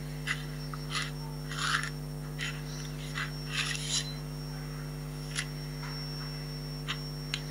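Knife blade scraping and cutting through a hard grenade-shaped shell in a series of short rasping strokes, most of them in the first four seconds, a few sparse ones after. A steady electrical hum runs underneath.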